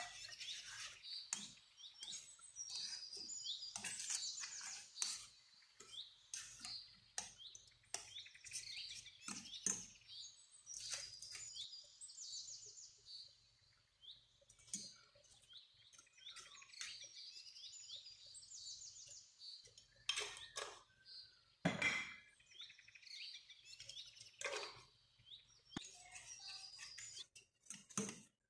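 Metal spoon clinking and scraping against a stainless steel saucepan as a thick cream and cheese sauce is stirred, with a bird chirping in quick high trills much of the time.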